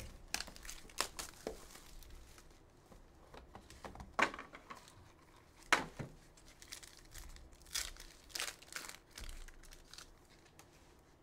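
Foil wrapper of a Court Kings trading-card pack crinkling and being ripped open by hand, in irregular crackles with sharper tears about four and six seconds in.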